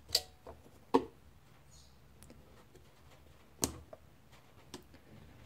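A few short, sharp plastic clicks and taps, spaced irregularly, as the plastic gear-end parts of a Lexmark MS310/MS510 drum unit are handled and worked with a screwdriver; the loudest clicks come near the start and about a second in.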